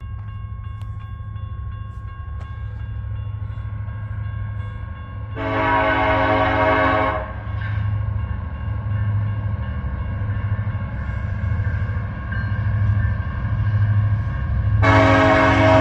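Train horn sounding two long blasts, the second starting just before the end, over the steady low rumble of a locomotive engine.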